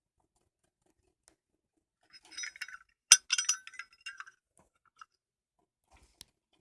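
Metal Zippo lighter cases clinking and rattling as they are handled, with one sharp clink about three seconds in and a few light ticks after.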